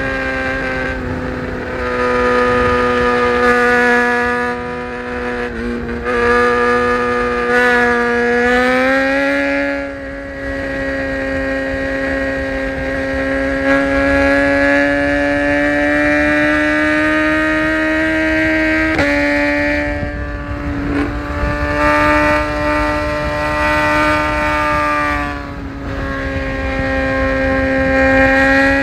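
BMW S1000RR inline-four engine pulling at high, steady revs under way, over a low rumble of wind. The note climbs about nine seconds in, then dips briefly a few times as the throttle changes.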